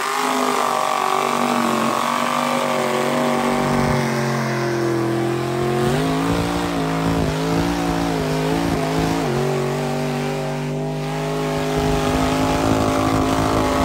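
Mud bog truck's engine running hard at high revs under load in a deep mud pit. The revs surge up and down several times in the middle, then hold steady.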